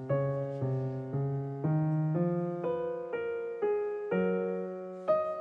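Background piano music, notes played about twice a second.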